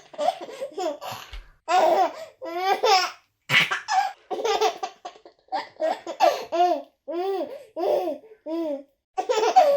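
A baby laughing hard in repeated bursts of giggles and belly laughs, each run of short, rhythmic pitched 'ha' sounds broken by quick breaths.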